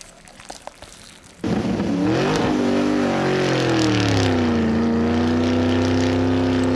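Car engine sound effect that cuts in suddenly about a second and a half in: its pitch rises, dips, then holds steady in a loud, even drone. Before it, only a few faint clicks.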